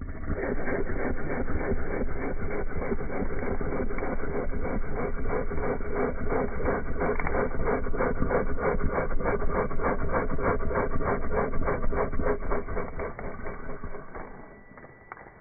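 A man snoring loudly: one long, rattling snore made of rapid even pulses, which fades out near the end.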